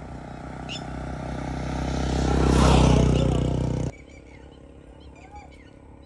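A motorcycle passing along the road, its engine growing steadily louder as it approaches and peaking about three seconds in. The sound then cuts off abruptly just before four seconds.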